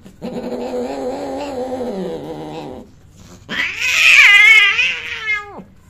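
Persian cats mating: a long, low yowl, then after a short pause a loud, high-pitched scream that drops in pitch as it ends, the female's cry at the end of mating as she turns on the male.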